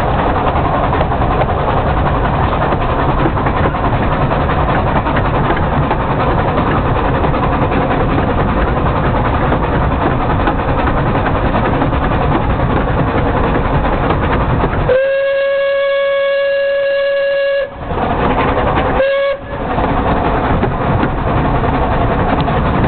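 Narrow-gauge steam train running, heard from an open carriage window: a steady rumble and rattle with wind noise. About fifteen seconds in, the locomotive's steam whistle gives one long blast of nearly three seconds at a steady pitch, then a short blast a second or so later.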